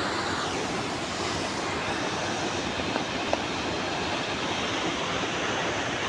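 Steady, even rush of a tall waterfall plunging onto rocks.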